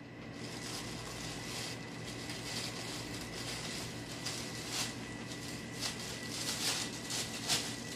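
Thin plastic shopping bag rustling and crinkling as a cat walks with the bag's handle looped around its body, dragging it across the floor. The crinkles come irregularly and grow louder and more frequent in the second half, over a faint steady hum and a thin high tone.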